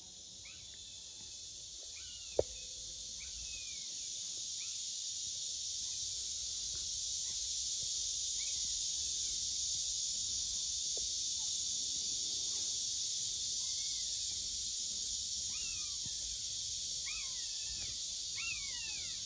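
A steady, high insect drone from summer insects, with short squeaky whimpers from puppies scattered over it that come more often near the end. A single sharp click about two seconds in.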